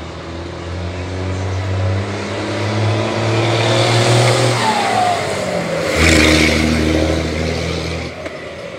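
A truck engine running close by, rising in pitch as it pulls, then suddenly louder about two-thirds of the way through before dropping away near the end.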